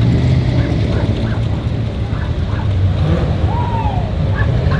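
Classic muscle-car V8 engines idling and creeping along in slow parade traffic, a steady low rumble.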